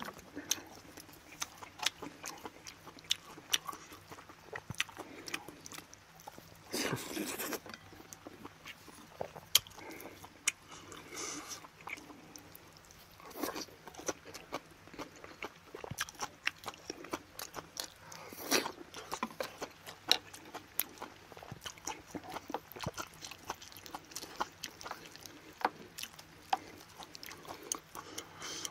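A person eating close to the microphone: chewing and mouth noises, with frequent sharp clicks of chopsticks and a spoon against the bowls, and a few longer, louder sounds.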